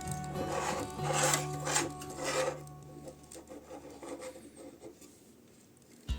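About five rough rasping strokes over the first two and a half seconds, like scraping or rubbing by hand, then fading away, with background music underneath.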